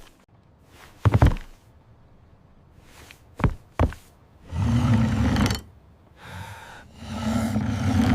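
Knocks and thuds of things being shut and secured against a storm: three sharp knocks in the first four seconds, then two longer rough rumbling noises of about a second each.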